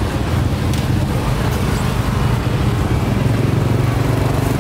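A small engine running steadily with a low, even rumble, such as a motorbike or scooter idling.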